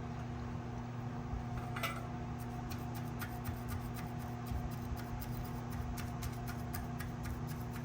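Soldering iron tip being cleaned, most likely wiped through brass wool: many light, irregular scratchy ticks and rubbing. A steady low electrical hum runs underneath.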